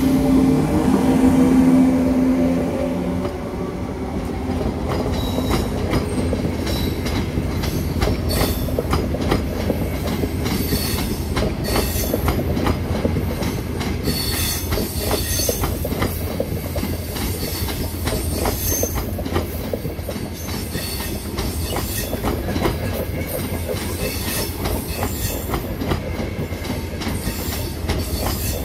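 ETR500 Frecciarossa high-speed train pulling out slowly. A pitched electric hum rises in pitch as the power car passes in the first few seconds. Then the coaches roll by with a steady run of wheel clicks over rail joints and points, and short high wheel squeals on the curve.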